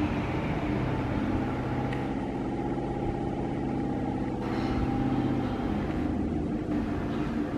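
Steady low engine hum with several held tones, like a motor vehicle running, shifting slightly about five and a half seconds in.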